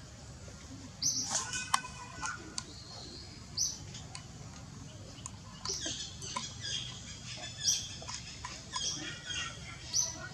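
Short, high-pitched chirping calls: one brief call recurs every two to three seconds, with busier runs of quick squeaks in between.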